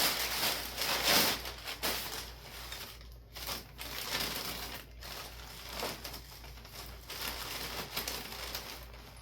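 A bag crinkling and rustling as hands rummage through it. It is loudest in the first couple of seconds, then comes in smaller, irregular rustles.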